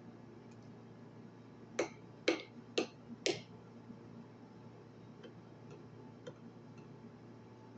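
Four sharp clicks about half a second apart, then a few fainter ticks later on.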